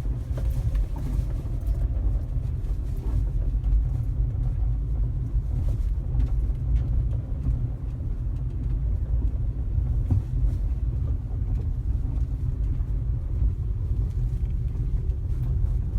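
Steady low rumble of a moving car, heard from inside the cabin: road and engine noise while driving.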